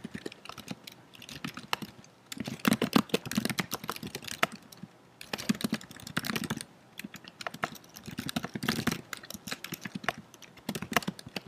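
Typing on a computer keyboard: quick runs of keystrokes in several bursts, with brief pauses between them.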